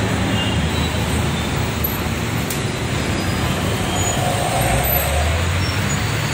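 Road traffic noise from slow, jammed traffic: vehicle engines running, with a low engine rumble that swells about four and a half seconds in.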